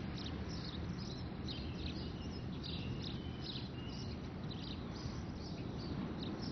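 Birds chirping and giving short whistled notes over a steady low background hum of outdoor ambience.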